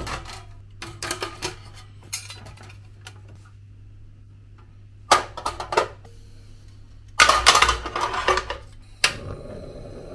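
Metal clinks and clatter from a Sengoku portable gas stove's steel top, pot supports and a pan being handled and set in place, with a louder clatter about seven seconds in. A sharp click as the ignition knob is turned near the end, then the steady hiss of the lit gas burner.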